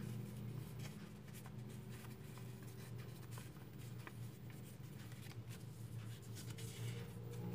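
Origami paper rustling and crinkling as hands fold and crease it, in faint, scattered soft crackles.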